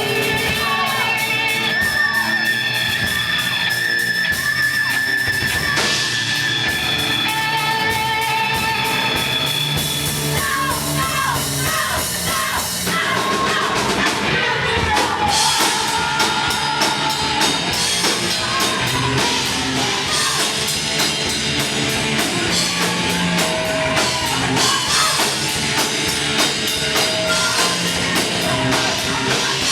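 Heavy metal band playing: electric guitars with a melodic lead line over a drum kit, and a singing voice.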